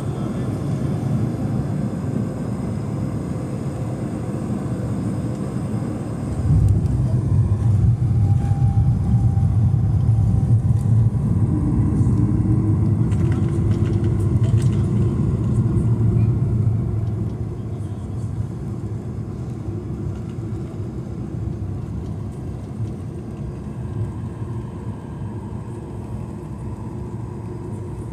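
Cabin noise of an Airbus A220 on its landing roll, its Pratt & Whitney PW1500G geared turbofans under reverse thrust. About six and a half seconds in, the engines spool up suddenly to a loud, deep rumble that holds for about ten seconds, then die back to a lower steady roll noise as the aircraft slows.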